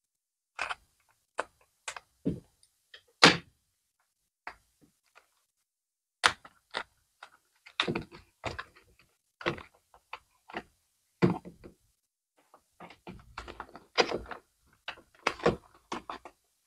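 Stiff clear plastic toy packaging with a plastic hanger being snipped with small scissors and then pried and pulled apart by hand: a string of irregular short clicks, snaps and crinkles, with brief pauses between them.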